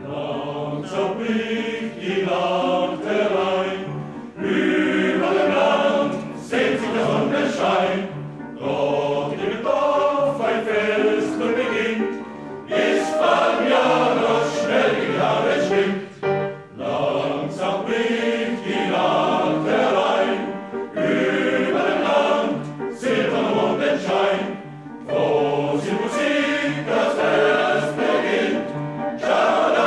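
A choir singing, in phrases separated by short breaks; the song starts abruptly.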